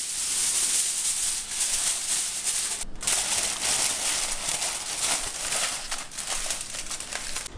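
Aluminium foil crinkling and crackling as it is crumpled, crimped and tucked around a roasting tin by hand, with a brief break about three seconds in.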